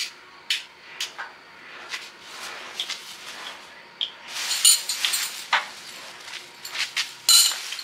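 Workshop handling noises: a string of sharp clicks and knocks, with two short bursts of scraping, rattling clatter about halfway through and near the end.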